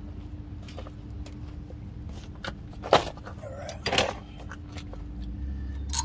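A few sharp metallic clinks and a clatter of small brake parts being handled, the loudest about three seconds in and another about a second later, over a steady low hum.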